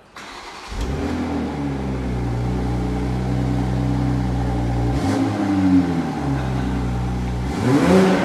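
Toyota GR Supra's 3-litre turbocharged B58 straight-six running steadily, coming in sharply about a second in. The revs dip about five seconds in and climb briefly near the end.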